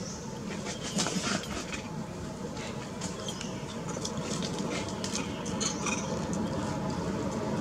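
Irregular wet clicks and smacks of a baby long-tailed macaque biting and chewing watermelon, the loudest about a second in, over a steady low background rumble.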